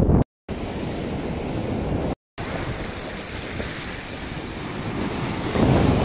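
Ocean surf breaking and washing against the shore, with wind buffeting the microphone. The sound drops out twice in the first couple of seconds and grows louder near the end.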